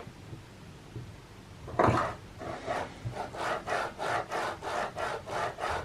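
HGR20 linear guide carriage, freshly reballed, slid back and forth along its steel rail: its recirculating balls give a rasping rolling sound in quick strokes, about three or four a second, from about two seconds in.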